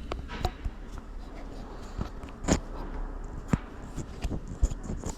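A few scattered knocks and clicks over a low steady hum, at uneven times, with no ringing drum notes.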